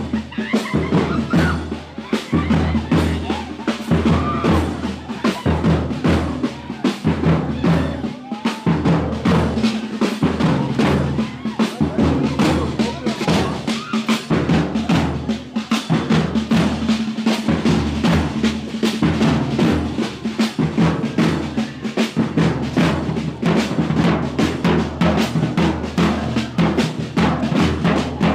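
Rapid, continuous drumming with a deep low beat under it, many strokes a second without a break: funeral drums accompanying a coffin being carried in procession.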